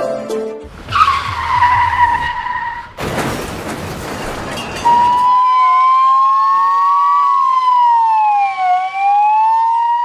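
Car-crash sound effects: a tyre screech that falls in pitch, then about two seconds of crashing noise, then emergency-vehicle sirens wailing slowly up and down, two overlapping.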